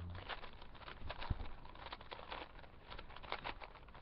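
Plastic 4x4 Rubik's cube being turned by hand: faint, irregular clicking and scraping of the layers as they rotate, with one duller knock about a second in.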